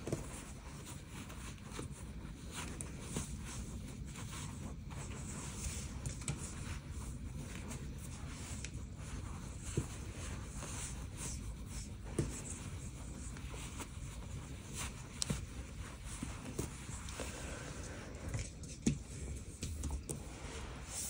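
Soft rustling and scraping of giant tube yarn handled by bare hands as stitches are pulled through, with a few small ticks and a faint steady hiss underneath.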